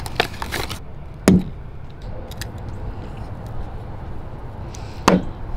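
Plastic packaging of a spool of fluorocarbon fishing line being opened and handled: a run of small crinkling clicks at the start, then two sharp snaps, about a second in and near the end, over a steady low rumble.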